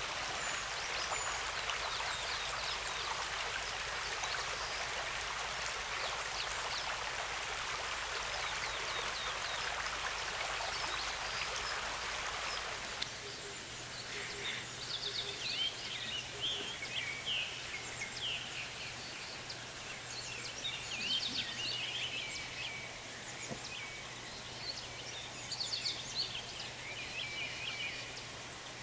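Creek water rushing steadily for about the first thirteen seconds, then it cuts off abruptly. Birds chirping and calling take over, with many short calls over a quiet background.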